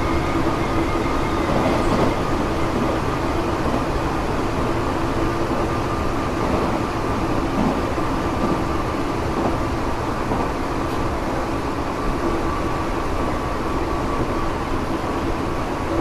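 Running sound heard inside a Tokyo Metro 7000 series electric train car moving at steady speed: continuous rumble of wheels on rail with steady droning tones. This car is known for an abnormal light 'jet sound' whine.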